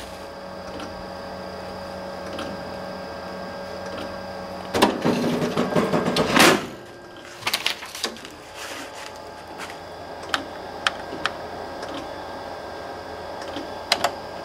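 Large photocopier humming at idle with steady tones. About five seconds in, loud handling noise lasts for a couple of seconds as the manual is handled on the glass. After it come a few sharp single clicks as buttons on the copier's control panel are pressed, one near the end.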